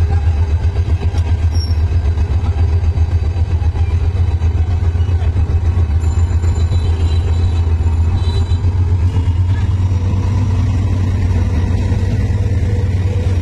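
Diesel-electric locomotive engine running as it pulls slowly past, a deep rapid throb. Near the end the throb eases into a smoother rumble as the passenger coaches roll by.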